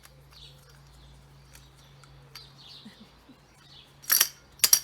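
Small garden birds chirping softly, then near the end a few loud, sharp clattering knocks as a feeder is worked to free a fat ball stuck inside it.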